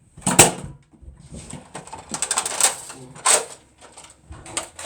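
Sharp plastic clacks and clicks of Nerf blasters being primed and fired, with a quick run of clicks a couple of seconds in.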